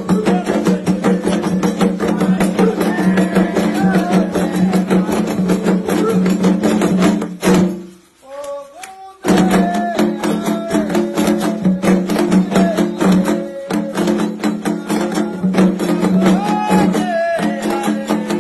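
Candomblé ritual music: fast drumming with voices singing over it. About eight seconds in the drums cut out and a voice sings alone for about a second and a half, then the drumming and singing come back in.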